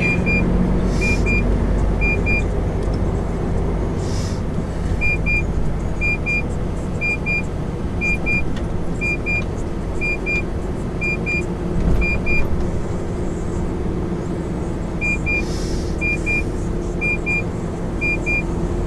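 MAN TGX semi-truck's diesel engine and tyres running steadily at low speed, heard inside the cab. A short, high double beep repeats about once a second for much of the time.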